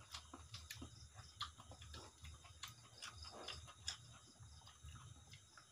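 Faint eating sounds: soft, irregular clicks and smacks as rice and curry are mixed by hand on a steel plate and chewed, over a low steady hum.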